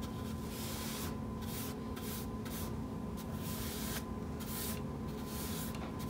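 A chip brush swishing chalk paint onto a wooden table, brushed against the grain in short back-and-forth strokes about twice a second.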